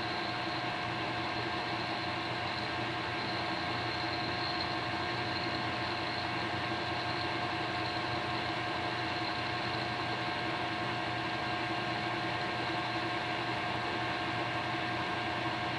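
Metal lathe running steadily under power, with a boring bar feeding through a drill-rod bushing to open its bore. A constant hum carries several fixed whining tones from the lathe's drive.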